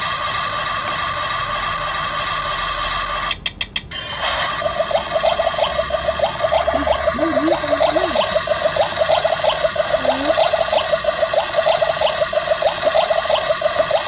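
Toy kitchen stove's electronic cooking sound effect playing from its small built-in speaker after a burner knob is turned on. A steady hiss with fixed tones cuts out about three seconds in, and after a brief break a fast, even pulsing sound runs on.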